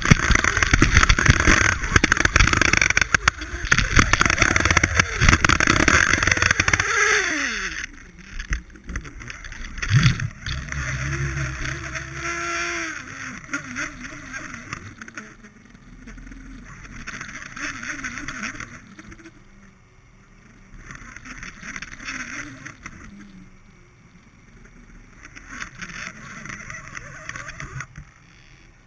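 Underwater sound heard through a GoPro's waterproof housing. A loud, crackling rush of water against the camera lasts about the first seven seconds, then drops to a much quieter wash with a single thump about ten seconds in.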